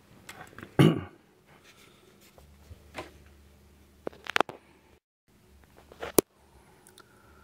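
Handling noise: a thump about a second in, then a few sharp clicks near three, four and six seconds in, over a faint low hum.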